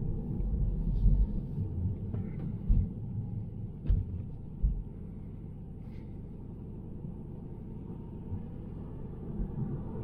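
Low road and tyre rumble inside a moving Tesla Model 3's cabin, with no engine note, and a few short low thumps in the first five seconds.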